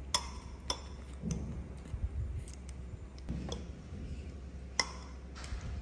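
Metal fork and spoon clinking and scraping against a glass bowl as soft fruit is mashed: a handful of sharp clicks spread a second or so apart, over a steady low hum.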